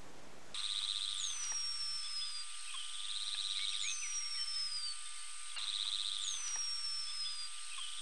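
Male bumblebee hummingbird's courtship display, repeated three times about every two and a half seconds. Each is a short whirring buzz from his wings followed by a high, thin whistle from his voice that slides downward.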